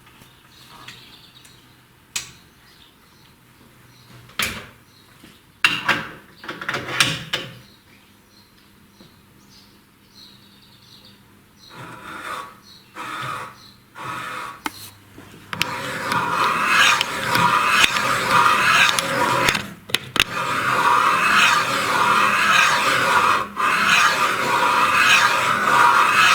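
Scattered clicks and knocks of metal tooling being handled, then, about two-thirds of the way in, a steady loud scraping squeal as a three-angle profile cutter on a seat-cutting machine cuts a cylinder-head valve seat.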